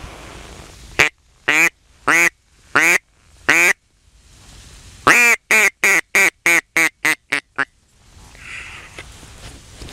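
Mouth-blown mallard duck call: five drawn-out hen quacks, then a fast run of about ten shorter quacks that get shorter toward the end.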